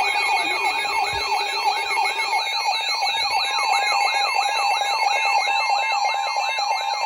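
Weather alert receivers sounding their alarm for a new warning. A rapid warbling, siren-like sweep repeats about four times a second over steady and beeping alert tones, and another steady tone joins near the end.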